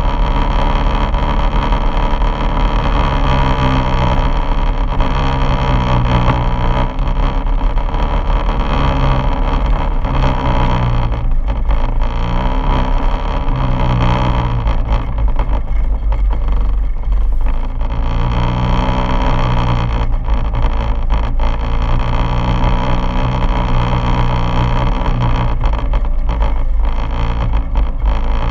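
Quad bike engine running under load on a dirt track, heard from the bike itself. The engine note rises and falls several times as the throttle changes.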